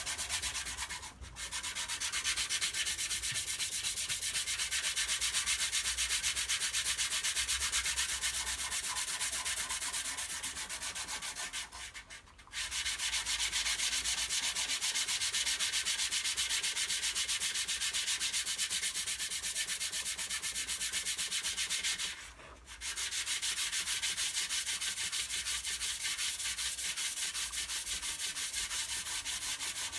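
Dry sanding of hardened body filler: a steady abrasive hiss that stops briefly three times, about a second in, near the middle and about two thirds of the way through.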